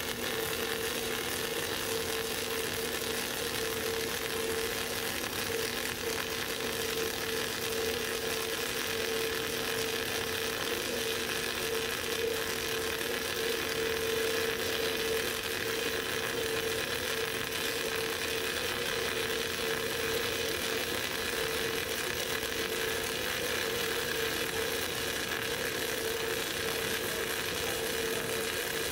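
Flux-cored arc welding with E71T-8 (NR-232) self-shielded wire: the arc crackles and spatters steadily through a horizontal fillet weld, with a steady hum underneath.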